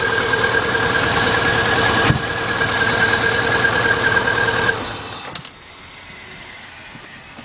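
2000 Subaru Impreza Outback's 2.2-litre flat-four engine idling rough with a misfire, more pronounced now that it is warmed up, then shut off about five seconds in; a single click follows.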